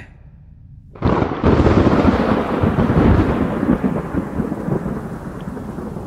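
Thunderclap sound effect breaking suddenly about a second in and rolling on, slowly fading, with rain beneath it.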